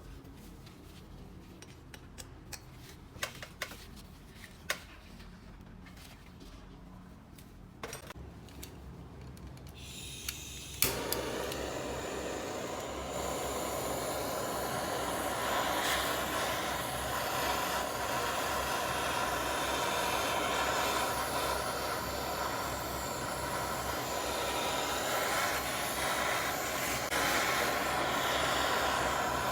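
Scattered light clicks and taps of metal parts being handled, then a steady, loud hissing machine noise starts suddenly about eleven seconds in and keeps running.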